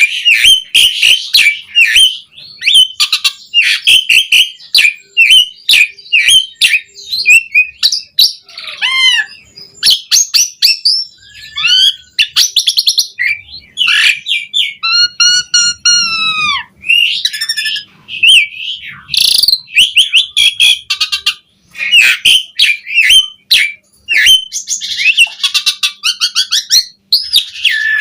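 Asian pied starling (jalak suren) singing a loud, continuous, varied song: quick whistles, chatters and rasping notes with no pauses, and a long rising-then-falling whistle about halfway through.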